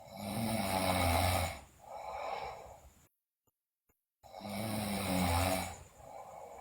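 A sleeping girl snoring loudly: two snores, each a loud, buzzy breath with a low rattle followed by a softer breath, with a silent pause between them.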